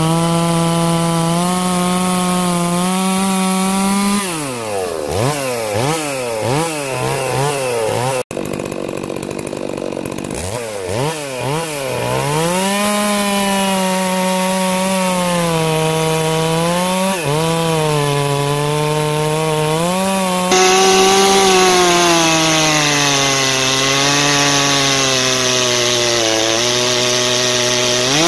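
Farmertec Holzfforma G660 two-stroke chainsaw with a 36-inch bar cutting through a big log of dry hardwood, running steadily under load. For a few seconds, starting about four seconds in, the engine speed dips and climbs again and again.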